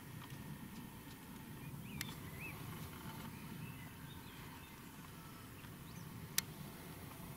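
Faint outdoor ambience: a low steady rumble with a few faint bird chirps, and two sharp clicks, the louder one about six seconds in.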